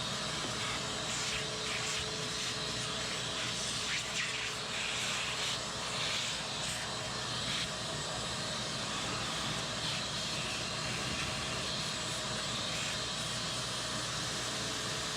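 Shop vac running steadily, its bare hose drawn over dust-clogged refrigerator condenser coils, with brief irregular rasps through the first half.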